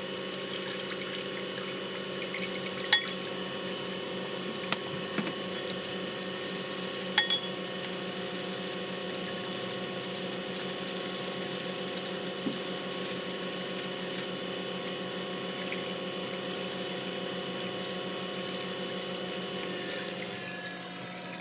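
Water running in a steady stream while vacuum cleaner parts are rinsed, over a steady motor hum that slides down in pitch and fades near the end. A couple of sharp knocks come early on, as the plastic parts are handled.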